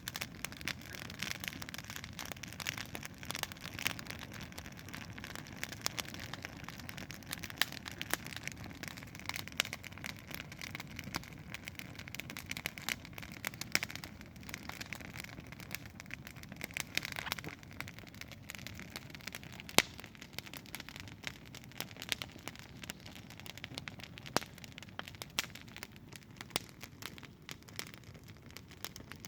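Wood campfire burning, with frequent irregular crackles and pops over a low steady rush, and one louder pop about two-thirds of the way through.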